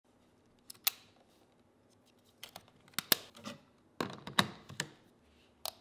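Hands handling a Canon DSLR camera body: an irregular string of sharp clicks and short scrapes as the body, its buttons and its strap are handled.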